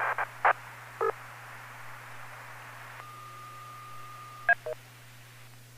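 DTMF touch-tone control tones sent over a ham radio link to command a remote base station: two short tone bursts in the first second, then steady radio hiss. About three seconds in a single steady beep sounds for a second and a half, followed by a few short tone chirps.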